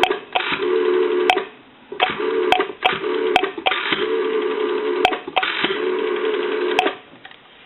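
Rotary dial of a GPO 606 desk telephone being dialed: the finger wheel is pulled round and whirs back about five times, digit after digit, with a sharp click between returns.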